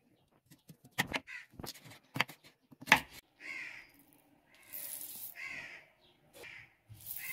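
Crows cawing several times, short calls a second or two apart. Between about one and three seconds in, a knife knocks sharply on a wooden cutting board a few times as a carrot is cut, and a little after the middle seeds hiss as they pour from a scoop into a stone mortar.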